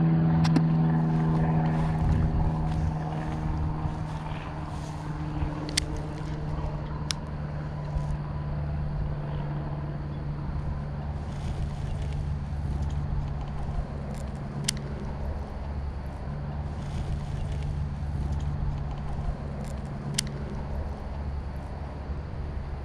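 A distant engine's steady drone, slowly fading away over about twenty seconds, with low wind rumble on the microphone. A few sharp clicks stand out here and there.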